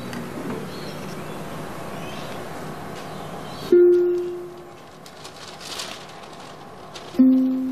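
Film score: single plucked notes on a ukulele-like string instrument, each ringing out and fading. The first comes about halfway in and a lower one near the end, over a steady background hiss.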